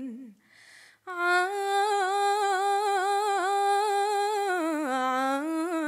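A woman singing a cappella, an Algerian mawwal in the sahli-Andalusian style. A phrase falls away and ends, there is a short pause for breath, and then she holds one long ornamented note that drops in pitch near the end and climbs back up.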